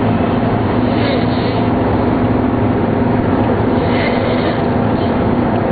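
A steady, loud low drone with a constant hum, unbroken and without any rhythm.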